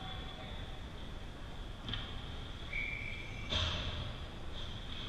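Ice hockey game sounds in an indoor rink: a steady background of skating and play, with two sharp knocks about two and three and a half seconds in and a short high tone just before the second knock.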